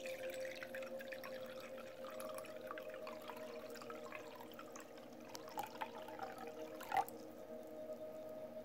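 Water trickling faintly from a glass jug into a cut-glass bowl, with scattered small drips, a steady faint hum underneath and a single clink about seven seconds in.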